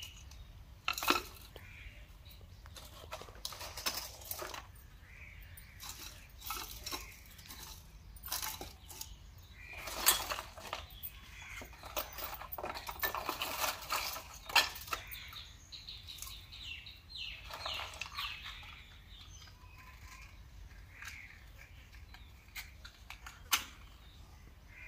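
Dry wooden sticks clattering and knocking as they are handled in a plastic crate and pushed into a wood-fired chulha. The knocks are short and irregular, and come throughout.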